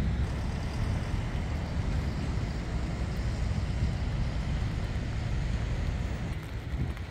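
Wind buffeting the phone's microphone: a continuous, uneven low rumble.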